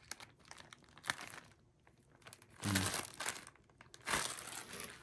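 Plastic packaging crinkling and rustling in three bursts, about a second in, near the middle and near the end, as the contents of a box are handled.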